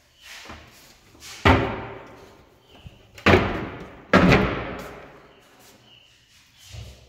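Door slammed shut three times, about a second and a half in, then twice more close together near the middle, each bang echoing briefly; softer knocks come before and after.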